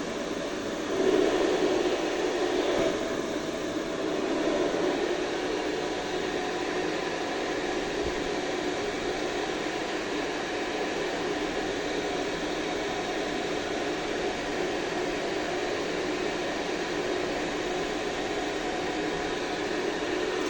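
HF-150 ventilation fan running steadily, a whooshing rush of moving air with a faint hum under it.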